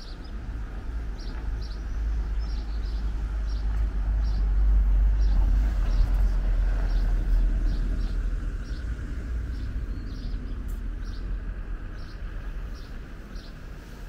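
Outdoor harbourside ambience: a low rumble that swells to its loudest about five seconds in and then fades away, with small birds chirping in short repeated notes throughout.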